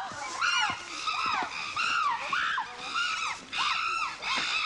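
Several chimpanzees screaming together in the excitement of a colobus monkey kill: a run of overlapping shrieks that rise and fall, about two or three a second.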